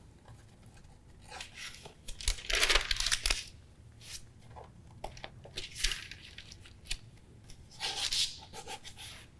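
Pages of an old photo album being turned by hand, the thin tissue interleaf sheets rustling and crinkling in several separate bursts, the loudest a few seconds in.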